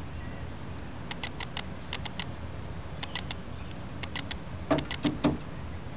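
Bird giving rapid short, sharp chirps in quick groups of three or four, a few louder ones near the end, over a steady low hum.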